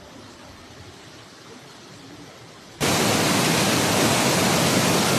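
Faint low background noise, then about three seconds in a loud, even rushing hiss starts abruptly and holds steady.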